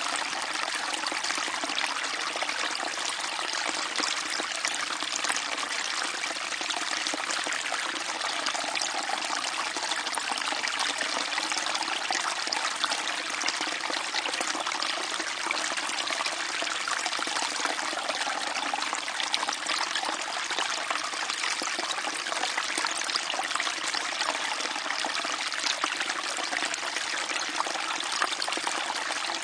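A small stream trickling and gurgling steadily, a constant bright babble of running water.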